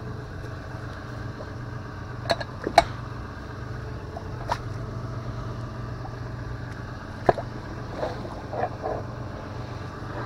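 Several sharp metal knocks and scrapes as a rusty steel block is handled and worked in under a car tyre, over the steady low hum of an idling engine.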